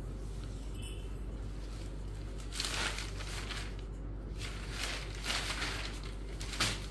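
Cotton saree cloth rustling as it is folded over and lifted by hand, in several short bursts starting about two and a half seconds in, over a steady low hum.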